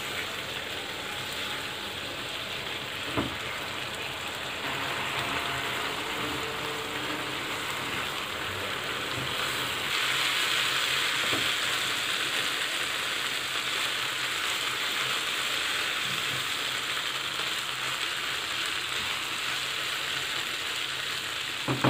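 Marinated chicken pieces frying in butter and oil in a nonstick pan, sizzling steadily as the yogurt marinade and the chicken's own juices cook off on medium flame. The sizzle grows louder about halfway through, with a single tap of the silicone spatula a few seconds in.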